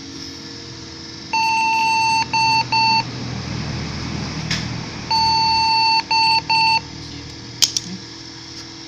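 Motherboard POST beep code repeating: one long beep followed by two short beeps, heard twice, a sign that the PC is failing its power-on self-test. A sharp click comes near the end.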